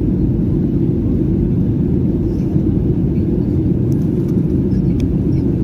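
Steady low rumble of a passenger airliner in flight, heard from inside the cabin, with a few faint ticks near the end.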